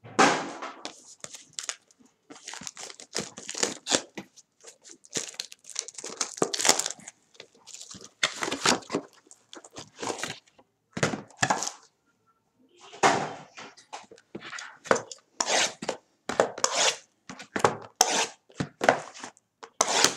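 Packaging of a sealed trading-card box being torn and crinkled open by hand, in a run of irregular ripping and rustling with a couple of short pauses.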